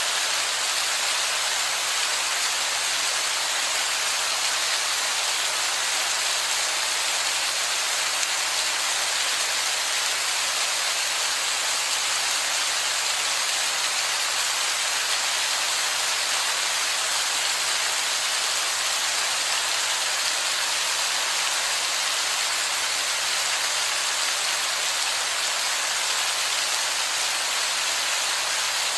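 Heavy rain falling steadily, an even hiss with no single drops or pauses standing out.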